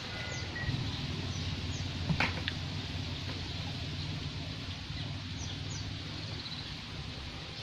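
Steady outdoor background hum with a few short, high, falling chirps scattered through it and one sharp knock about two seconds in.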